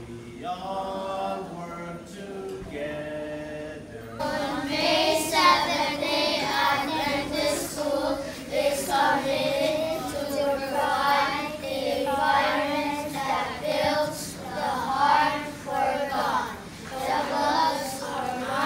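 A group of children singing together; the singing becomes abruptly louder and closer about four seconds in.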